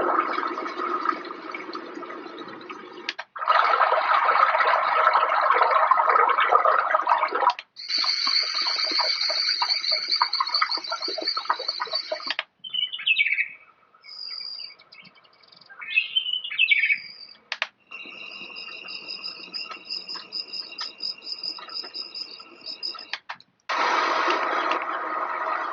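Auroula Smart X1 alarm clock's built-in ambient nature sounds played through its speaker, switching abruptly from one track to the next every few seconds. A rushing, water-like noise comes first, then bird chirps in the middle, then a steady high chirring, and the rushing noise returns near the end.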